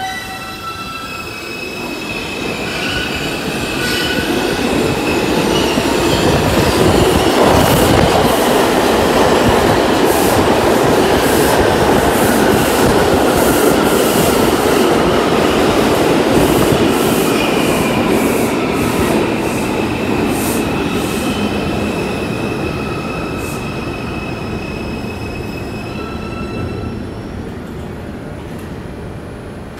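New York City Subway train pulling into the station: a steady rumble that builds to a loud peak mid-way and then slowly dies down as the train slows. Wheels click over the rail joints and squeal with thin high tones.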